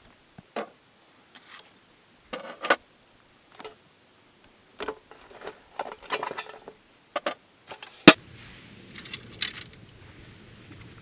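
Scattered clicks and clatters of painting gear being handled, a wooden paint box and a small green tin being opened, with one sharp snap about eight seconds in. After it, a faint steady hiss.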